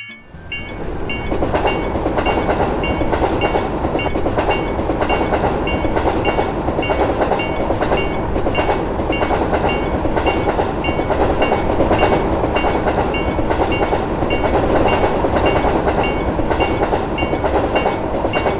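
Electric train passing over a level crossing: a steady rumble and clatter of wheels on the rails, building up over the first second or so. Over it the crossing's warning bell keeps ringing in an even, repeating beat.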